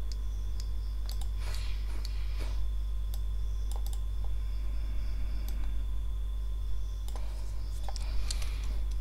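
Computer keyboard keystrokes and clicks, irregular and scattered, as code is being edited. A steady low electrical hum runs underneath.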